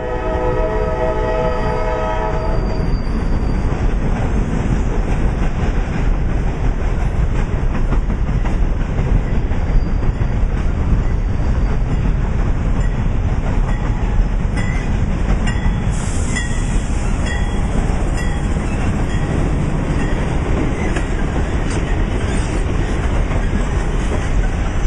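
Norfolk Southern diesel locomotive's air horn sounding one long blast for about the first three seconds. Then the steady loud rumble of the diesel and the train's wheels on the rails as it passes close by, towing an unfired steam locomotive, with a few sharp clicks in the middle.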